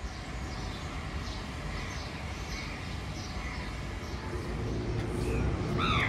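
Outdoor street ambience: a steady low rumble of traffic, with small birds chirping over and over. One louder, harsh bird call comes near the end.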